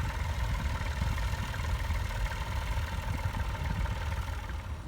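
Vintage tractor engine running steadily at a low, even idle.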